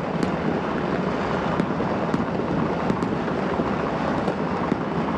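Citywide New Year's fireworks and firecrackers heard from far off: a dense, continuous crackle of many explosions at once, with sharper single bangs standing out about once or twice a second.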